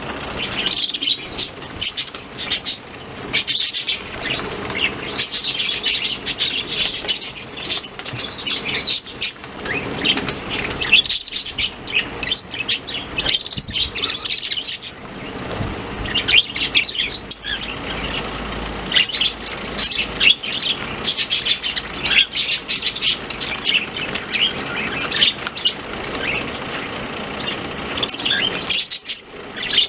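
Several budgerigars chirping and chattering without pause, many quick high chirps overlapping.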